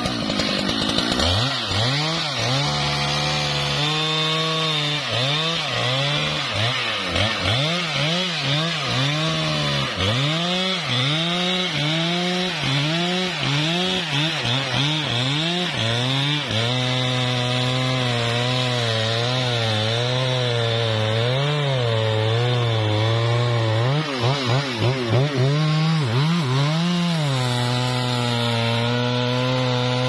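Husqvarna 395 XP two-stroke chainsaw cutting into a trembesi trunk at high revs, its engine pitch dipping and recovering over and over as the chain bites into the wood. For several seconds past the middle the pitch holds steadier, then it starts swinging again near the end.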